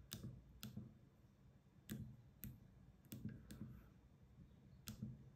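Keys being pressed on a SwissMicros DM42 calculator keypad: about seven faint, separate clicks, unevenly spaced, some half a second apart and some more than a second apart.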